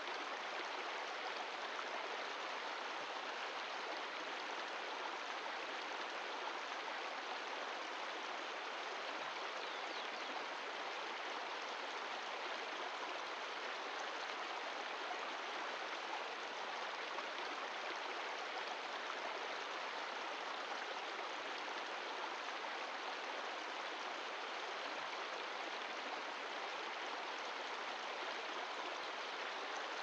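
Glacial meltwater mountain stream running with a steady, unchanging rush of water.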